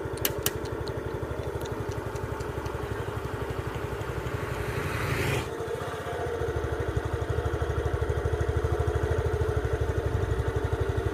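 A vehicle engine idling with a steady, rapid, even pulse. A rush of noise builds and cuts off abruptly about five seconds in, after which the engine runs a little louder. A few light clicks come in the first half-second.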